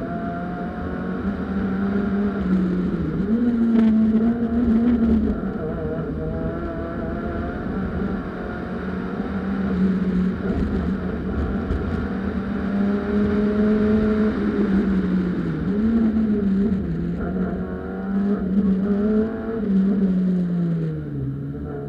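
Peugeot 206 1.6-litre four-cylinder engine under hard driving on a wet track, heard from inside the car: the engine note holds high, dips and climbs again several times with gear changes, and falls steadily near the end as the car slows for a corner.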